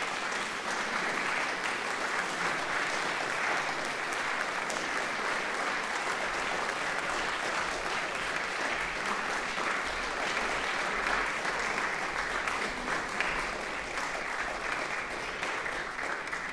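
Audience applauding, a steady mass of clapping that begins to taper off near the end.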